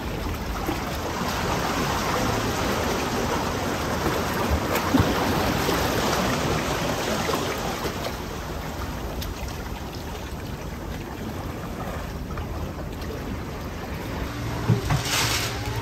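Sea surf washing against a breakwater of concrete tetrapods: a steady rushing of water that swells and eases slowly. Near the end a low hum and a few knocks come in.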